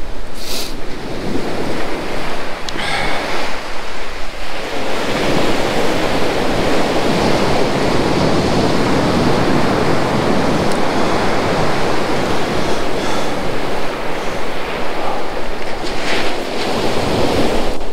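North Sea surf breaking and washing up the beach: a continuous rushing that swells about five seconds in and stays loud, with wind on the microphone.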